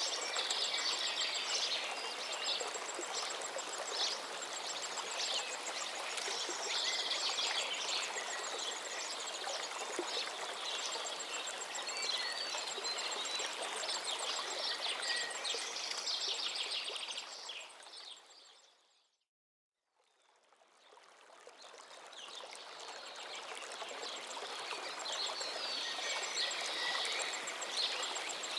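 Nature ambience of running water with birds chirping and trilling. It fades out to silence about two-thirds of the way in, then fades back in.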